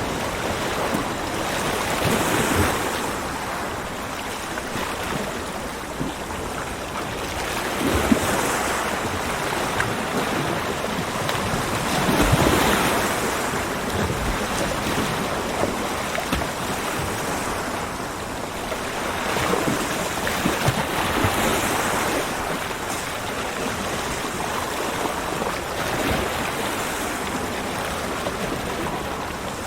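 Ocean waves breaking and washing up a beach, swelling and falling back every few seconds in a continuous surf rush.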